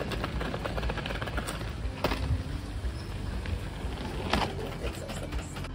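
Wheels of two hard-shell rolling suitcases rattling over a paved path: a dense run of small clicks, with a couple of louder knocks about two seconds and four seconds in.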